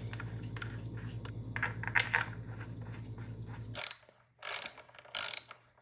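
Hand work on a motorcycle brake caliper: scattered metal clicks over a steady low hum. The hum cuts off nearly four seconds in, and three short, loud rasping strokes follow.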